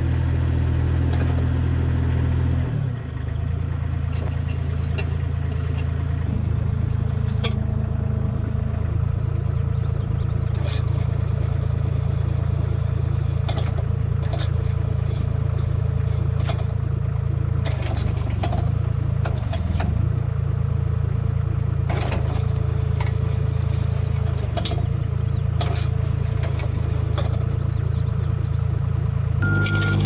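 Compact track loader's diesel engine running steadily under load while its hydraulic power rake rotor churns gravel. Scattered clicks of stones clatter and scrape throughout.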